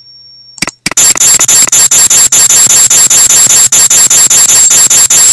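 Loud hissing static with rapid, irregular clicks and crackles, about six a second, starting about a second in after a brief faint hum.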